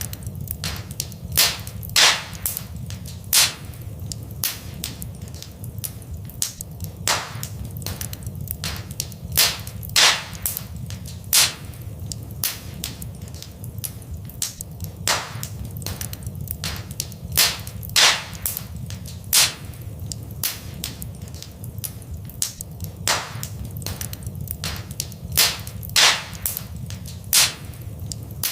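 Fireplace fire crackling: irregular sharp pops and snaps, some much louder than the rest, over a steady low rumble.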